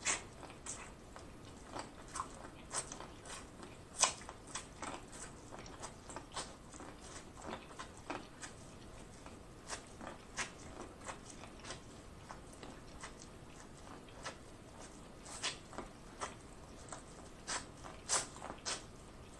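Eating corn on the cob: kernels bitten off the cob and chewed, a run of irregular crisp clicks and crunches.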